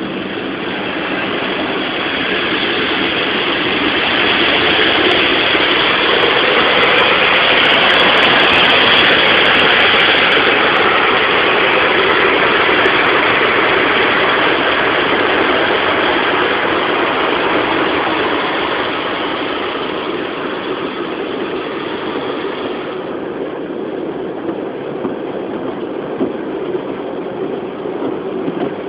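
Automatic car-wash water jets spraying onto the car's windscreen and body, heard from inside the cabin as a steady loud rushing. It swells over the first few seconds and eases off about twenty-three seconds in.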